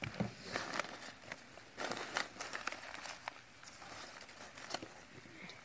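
Crumpled packing newspaper rustling and crinkling as a hand digs through it in a plastic tub, in short irregular rustles with a few small clicks.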